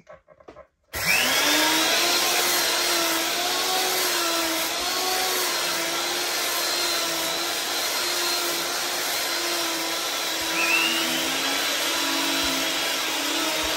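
Stainless-steel high-speed electric grinder (a Robolux grain and spice mill) switching on about a second in and running steadily at full speed, a loud motor whine. A second, lower tone comes in about eleven seconds in.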